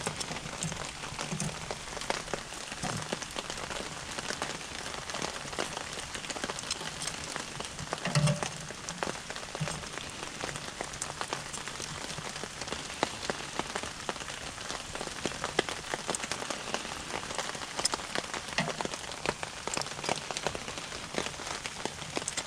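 Wood and charcoal fire in a small cooking stove crackling steadily with dense, fine popping, and a few soft knocks now and then.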